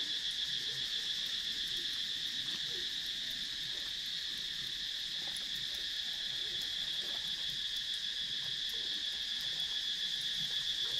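Steady, high-pitched chorus of insects chirring without a break.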